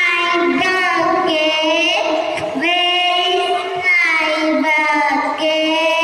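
A child singing into a handheld microphone, the notes long and held with a slight waver.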